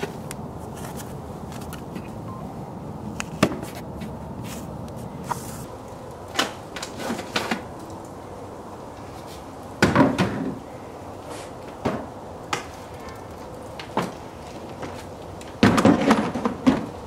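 Plastic clicks, knocks and clunks of a DeWalt ToughSystem 2.0 rolling tool box being handled and loaded into a pickup truck bed. Single clicks come now and then, with a loud run of clunks about ten seconds in and another near the end as the box goes into the bed.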